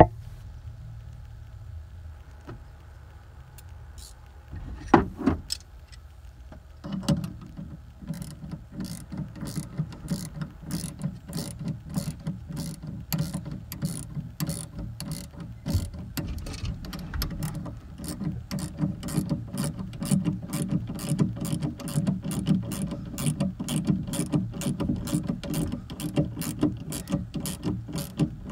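Ratcheting combination wrench clicking as it turns the nut on top of a rear shock absorber. A few separate clicks come first, then from about a quarter of the way in a steady run of two to three clicks a second.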